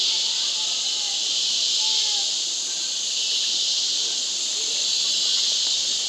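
Rainforest insects keeping up a steady high-pitched chorus, with a few faint short bird chirps now and then.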